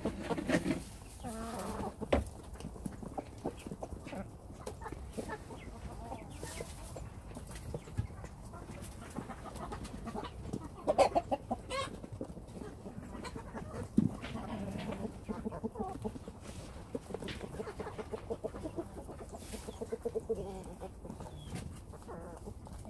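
Hens clucking as they feed, in short repeated calls that come thickest near the middle and toward the end, among many sharp ticks of beaks pecking at a metal feed pan.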